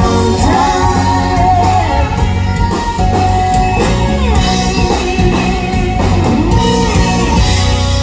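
Live country-rock band over a PA: a woman singing with electric guitar, drums and heavy bass.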